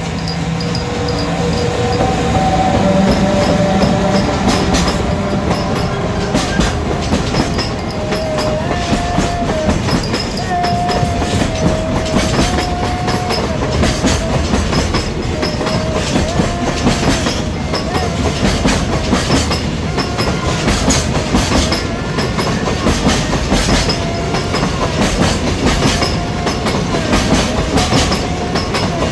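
A long freight train passing close by, its wagons' wheels clicking steadily over the rail joints, with a wavering wheel squeal. A small handbell rings at a steady pace above it.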